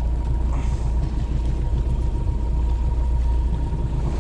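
Boat motor running steadily at trolling speed, a low, even rumble with a thin steady tone above it.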